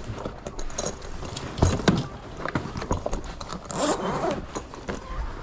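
Handling noise of someone working by hand inside a furnace: irregular clicks, knocks and scrapes, with a longer scraping rustle about four seconds in.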